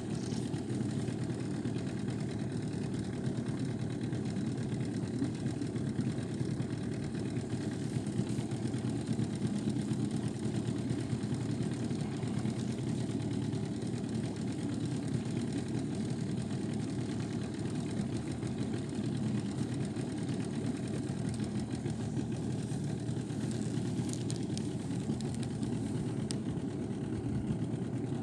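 Small boat's outboard motor running steadily, an even low drone.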